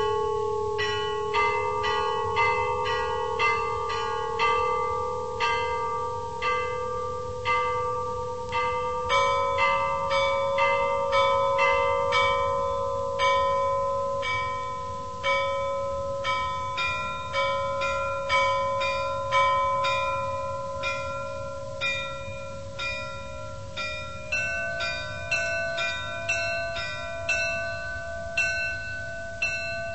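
Bells struck one to two times a second, each stroke ringing on, over held tones that change pitch a couple of times, like a bell-ringing music track.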